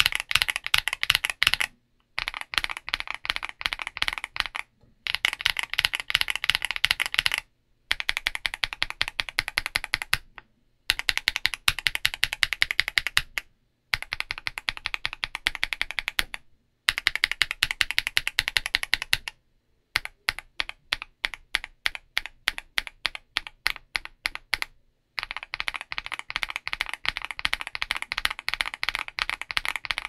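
Mechanical keyboard typing: short runs of rapid keystrokes broken by brief gaps, with more spaced-out single strokes from about twenty seconds in. The board is fitted with CIY Red Lotus linear switches (POK stems, factory stem-lubed) under D, F and G and stock, unlubed Akko CS Vintage White switches elsewhere. The Red Lotus keys bottom out with a muted but deep tone, not as loud as the Vintage Whites.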